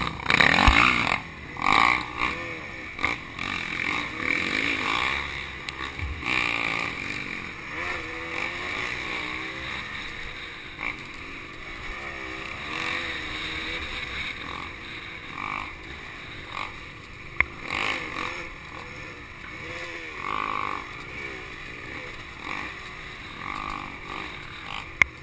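Honda CRM250 single-cylinder two-stroke dirt bike engine on the move, its revs rising and falling as it rides a rough trail. It is loudest in the first few seconds, with a few sharp knocks along the way.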